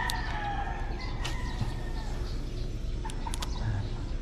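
A rooster crowing, one long held call that falls slightly and fades out about two seconds in, over a steady low background rumble with a few faint clicks.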